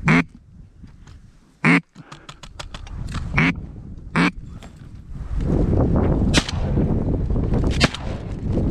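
Loud single mallard quacks, four short ones spread over the first half. From about halfway on, a steady rush of wind on the microphone rises under them.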